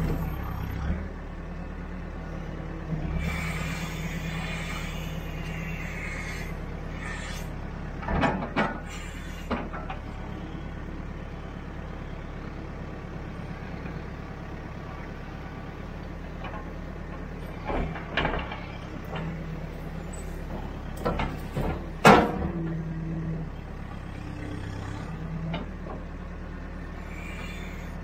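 Backhoe's diesel engine running as the hydraulic boom and bucket dig, its hum rising now and then under load. Several sharp clanks and knocks from the bucket and boom, a cluster about eight to nine seconds in, another near eighteen seconds, and the loudest about twenty-two seconds in.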